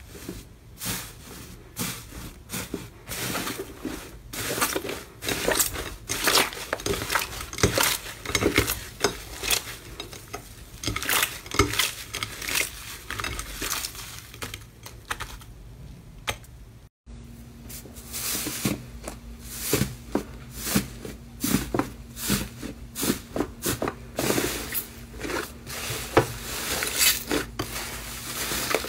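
Hands squeezing, kneading and tearing thick slime: a dense run of small crackles, pops and sticky squelches as air pockets burst and the slime pulls apart. About 17 seconds in the sound breaks off for an instant and carries on with a different slime, now with a faint steady hum behind it.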